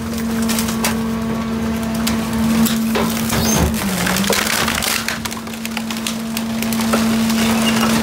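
Garbage truck compactor crushing a load of wood boards and household trash: wood cracks and splinters in many sharp snaps over the truck's steady machine drone. The drone dips briefly in pitch about halfway through.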